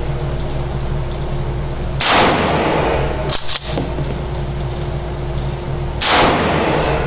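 Winchester 1300 Defender pump-action shotgun fired twice, about four seconds apart. Each shot is a loud, echoing blast. Between the shots the pump slide is racked in two quick clacks.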